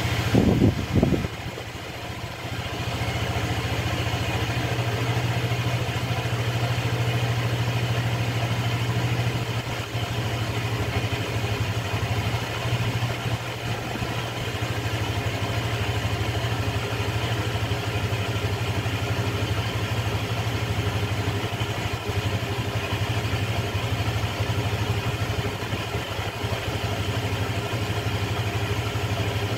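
Small automatic scooter's engine, loud for about the first second as it is started, then settling into a steady idle.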